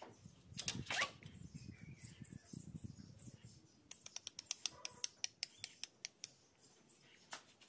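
A young dog crunching dry kibble: a run of quick, sharp crunches about four or five a second through the second half, after some quieter shuffling.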